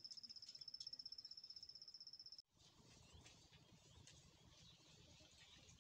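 A cricket trilling, a high, steady, fast-pulsing tone that cuts off suddenly about two and a half seconds in. After that there is only faint outdoor background with a few soft chirps.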